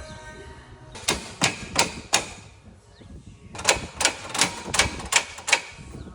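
Sharp hammer blows on metal, in two runs: four quick strikes about a second in, then about seven more after a short pause.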